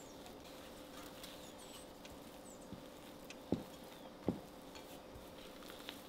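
Silicone spatula folding butter cookie dough in a glass bowl: soft scraping and squishing, with two sharper knocks of the spatula against the glass a little past halfway.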